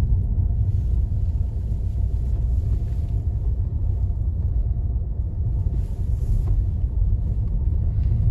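Steady low rumble of a car's engine and tyres heard from inside the cabin while it drives along a rough, muddy lane.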